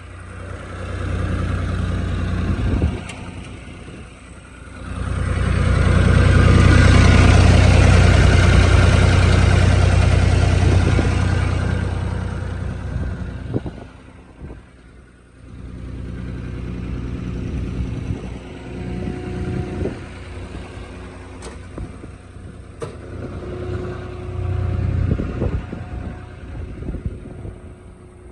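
John Deere 240 skid steer's diesel engine running, rising to a much louder, higher-revving stretch for several seconds before dropping back, with a few sharp knocks later on.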